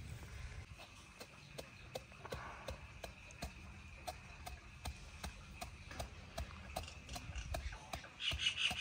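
Pestle pounding fennel seeds in a mortar, a steady rhythm of sharp knocks about three a second, to crack the seeds coarsely. Near the end, rapid high chirping starts and is the loudest sound.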